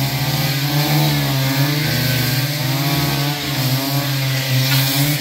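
Petrol brush cutter running and cutting grass, its engine speed rising and falling repeatedly as it works through the growth.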